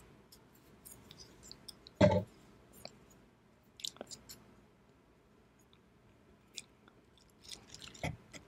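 Light clicks and taps of wooden chopsticks being handled, with one loud thump about two seconds in. Near the end there is a run of clicks and a knock as the chopsticks grip a slice of raw salmon on the wooden board.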